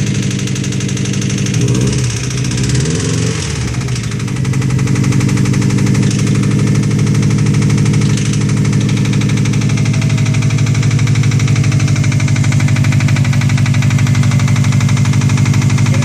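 Subaru WRX turbocharged flat-four engine running just after start-up with a steady, rapid knocking, its speed rising and falling briefly about two seconds in. The owner takes the knock for rod knock in the newly installed used engine.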